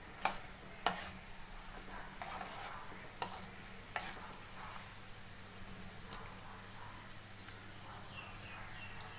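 Tempering spices (mustard seeds, cumin, split chickpeas, urad dal and dried red chillies) sizzling in hot oil in a steel pan while a spoon stirs them. A handful of sharp clicks stand out over the sizzle.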